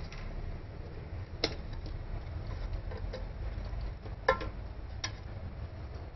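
A few sharp clicks and clinks of metal parts and wiring being handled during disassembly of an electric scooter's motor and gearbox housing, the loudest about two-thirds of the way in. A low steady rumble runs underneath.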